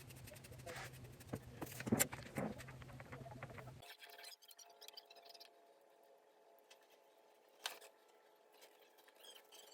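Faint small clicks and taps of hands handling things at close range, over a low hum that cuts off abruptly about four seconds in; after that only a few faint ticks and one sharper click.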